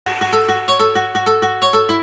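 Background music: a quick, evenly paced melody of plucked-string notes.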